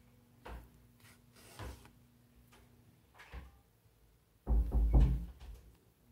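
Handling noise as hands work a needle and yarn through a knitted hat: a few soft knocks and rubs, then a louder low bumping about four and a half seconds in that lasts about a second.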